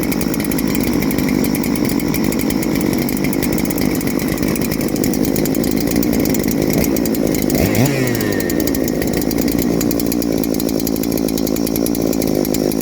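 Big-bore two-stroke chainsaw engine, a clone of the Husqvarna 3120XP, running steadily, with a brief rise and fall in pitch about eight seconds in.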